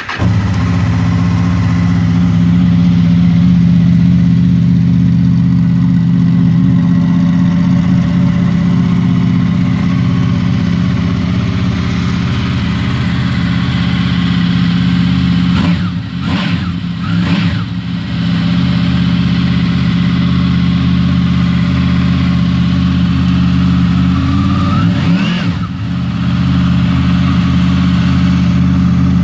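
Honda VFR800 VTEC's V4 engine through an aftermarket Laser exhaust, idling steadily just after start-up. It is revved in a couple of quick throttle blips a little past halfway, and once more near the end.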